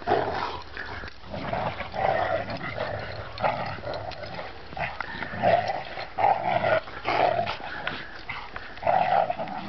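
Several dogs play-fighting, growling and giving short barks and yips in irregular bursts. This is rough play for dominance, not a real fight.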